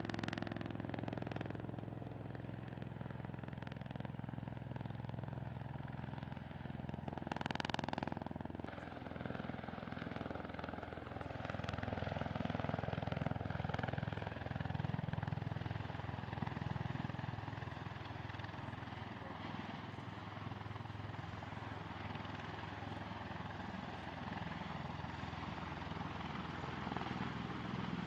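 V-22 Osprey tiltrotor's engines and rotors running with a steady drone that swells and eases, and a brief rushing swell about seven seconds in.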